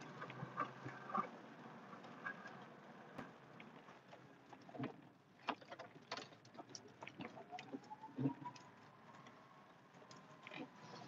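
Faint sounds of a pickup truck plowing snow, heard from inside the cab: scattered light clicks and knocks, and from about seven seconds in a whine that rises and then holds steady.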